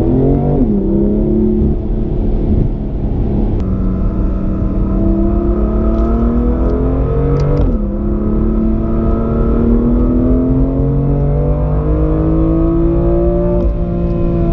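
BMW M2 Competition's 3.0-litre twin-turbo straight-six accelerating hard at full throttle. The engine note climbs and drops sharply twice, about half a second in and again about halfway, as the dual-clutch gearbox makes quick upshifts, then climbs once more.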